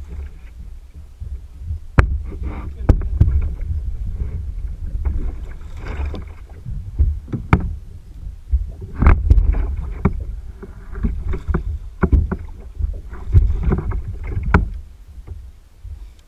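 Irregular knocks and bumps against a kayak hull, with swells of splashing water and a steady low rumble on the microphone.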